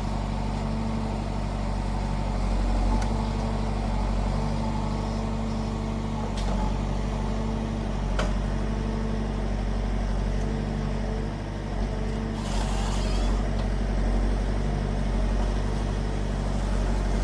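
Forestry harvester's engine running steadily under load, with a few sharp clicks and knocks from the machine and a brief hiss about two thirds of the way through.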